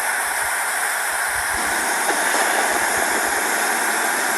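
Hurricane wind: a loud, steady rush of storm noise that starts abruptly and holds without change.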